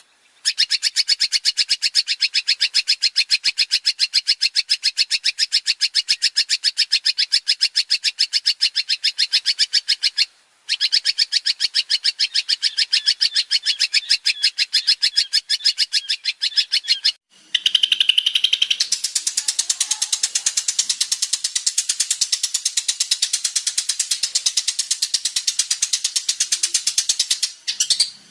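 Long-tailed shrike (cendet) singing: a fast, evenly repeated train of high notes that breaks off twice, then turns into a denser, harsher chatter about two-thirds of the way through.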